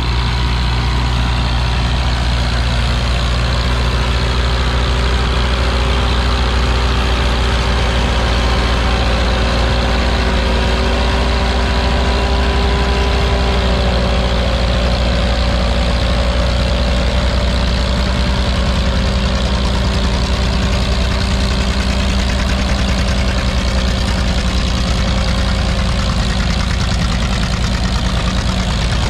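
Farmall tractor engine running loud and steady under heavy load as it pulls a weight-transfer sled.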